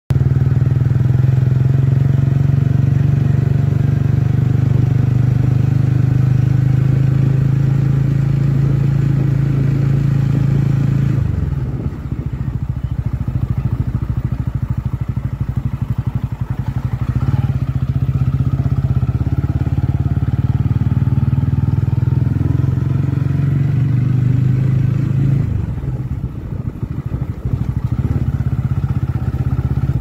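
TVS Ronin 225's single-cylinder engine running as the motorcycle rides along, with a steady low note. The note breaks up and drops in level twice, about 11 seconds in and again around 26 seconds, then steadies.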